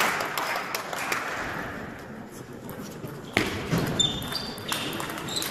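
Table tennis rally: the ball clicking off rackets and table, a sharp hit about three and a half seconds in, followed by brief shoe squeaks on the hall floor over a background murmur.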